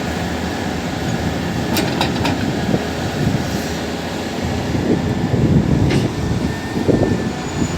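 Heavy diesel earthmoving machinery running with a deep, uneven rumble, and a few sharp clicks or clanks about two seconds in and again near six seconds.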